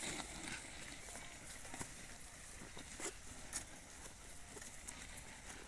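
Faint, irregular soft steps and scuffs in loose field soil, with a sharper tick now and then.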